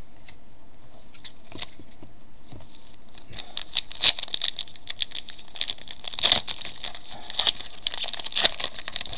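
Crackling and tearing of a foil trading-card pack wrapper being opened, beginning about three seconds in and going on as a dense run of crisp crinkles and clicks.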